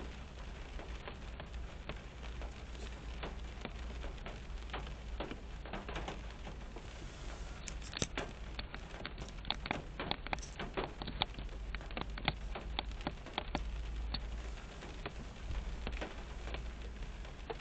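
Rain falling on a car's roof and windshield, heard from inside the car: a steady hiss of rain with many sharp individual drop strikes, coming thickest about halfway through, over a low steady rumble.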